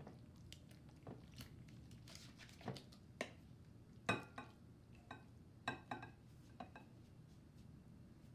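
Metal spoon scraping and tapping against glass bowls as creamy ambrosia fruit salad is pushed out of one glass bowl into another, with soft squelches of the salad sliding. A scattered run of faint clicks, the sharpest about four seconds in.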